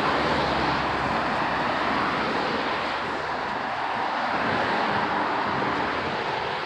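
Steady outdoor rushing noise of wind and distant city traffic, with no thunder or sharp sounds.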